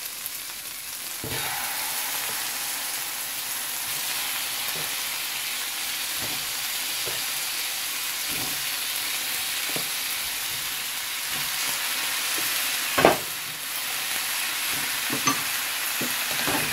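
Raw chicken drumsticks sizzling in hot oil with sautéed onion, garlic and ginger. The sizzle grows louder about a second in as the chicken goes into the pan, with a sharp knock toward the end.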